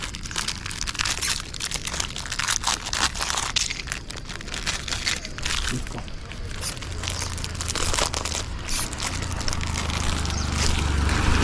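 Stray dogs eating dry biscuits: a dense, irregular run of crisp crunches and crackles as the biscuits are chewed.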